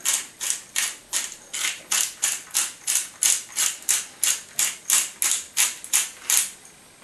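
Hand-held pepper mill grinding peppercorns, one short rasp with each twist of the top, about three a second, stopping near the end.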